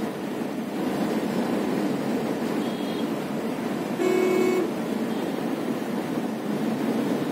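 Steady road and engine noise heard inside a moving car, with a vehicle horn sounding once for about half a second around four seconds in.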